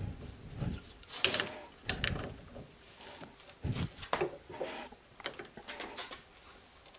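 Irregular metal clanks, knocks and scrapes as an aluminium Toyota 3S-FE oil pump housing is shifted in a bench vise and a long breaker bar is fitted and worked on its tight drive-gear nut.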